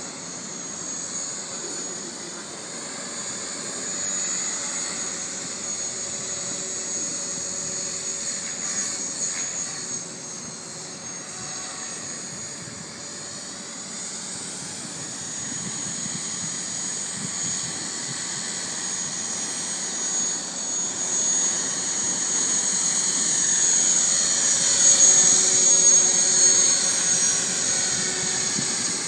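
JR NEX E6 radio-controlled helicopter in flight, its rotors and motor giving a steady high-pitched whine that grows louder near the end as it comes closer.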